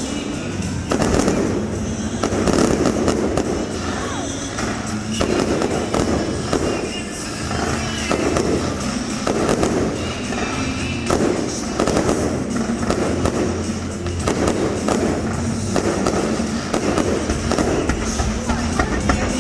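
Fireworks going off in a continuous show, bangs about once a second, over music playing on loudspeakers.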